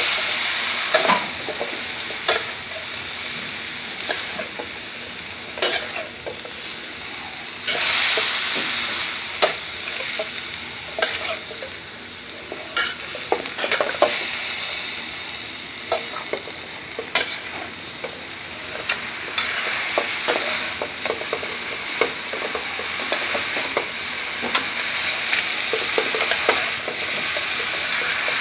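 Sliced uri beans and potato sizzling in hot oil in a pan while being stir-fried, with a steady hiss and a metal spatula scraping and knocking against the pan every second or so.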